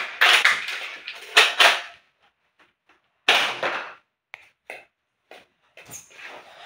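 A Nerf Accu-Rival Forerunner spring blaster being shot and primed with foam Rival rounds: a quick run of sharp plastic clacks and knocks in the first two seconds, a second cluster about three seconds in, then a few faint ticks.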